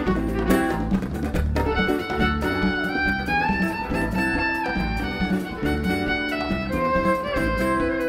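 Instrumental background music: a melody with sliding notes over a moving bass line.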